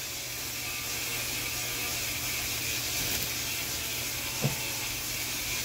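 Food sizzling on a hot flat-top griddle, a steady hiss, with a single knock about four and a half seconds in.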